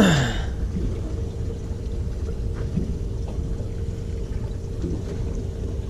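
Boat engine idling: a steady low rumble with a faint steady hum. A short, sharp sound comes right at the start.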